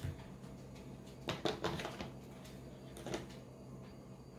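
A few light clicks and taps of makeup items being handled, a cluster about a second and a half in and one more near three seconds, over a faint steady hum.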